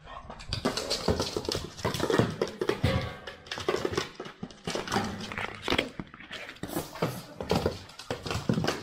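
Background music over a pug pushing a hard yellow toy across a wooden floor with its nose, the toy knocking and rattling again and again against the floor and wall.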